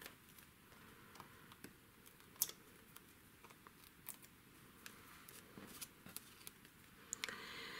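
Faint, scattered small clicks and rustles of paper card and ribbon strips being handled by hand, with one sharper click about two and a half seconds in.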